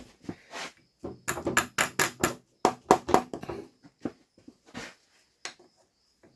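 Metal tools clicking and knocking against steel manual transmission parts while a part is pried out: a quick run of sharp clinks in the first half, then a few scattered ones.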